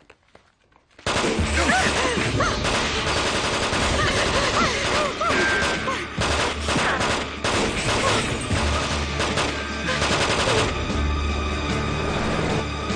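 Sustained automatic gunfire breaks out suddenly about a second in, a dense, rapid fusillade lasting some ten seconds. Near the end the shots stop and a vehicle engine is heard running.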